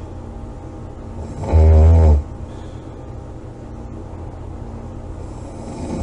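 A woman snoring in her sleep: one loud, pitched snore about a second and a half in, lasting under a second, and the next snore starting near the end. A faint steady hum runs underneath.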